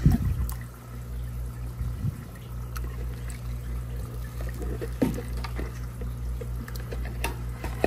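Water poured from a 4-litre measuring cup into a fry tray in an aquarium, splashing and trickling, loudest as the pour begins. A steady low hum runs underneath.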